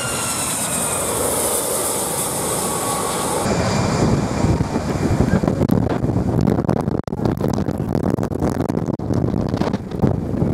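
Boeing 757 passing low on landing approach, its engine whine slowly falling in pitch. After a cut comes the rushing jet blast of an airliner at the runway end, with wind gusting and buffeting the microphone.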